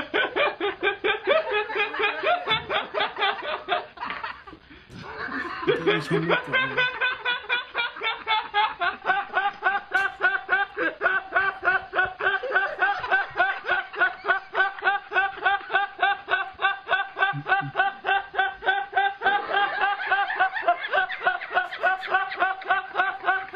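A young man laughing hard in a high voice: long runs of quick, evenly spaced 'ha' pulses at a steady pitch, with a short break about four seconds in.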